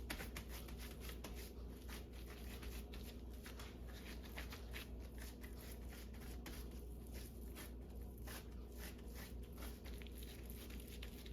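Hands squeezing and pulling apart a wet ground-beef mixture: a run of irregular soft squelches and sticky clicks, over a low steady hum.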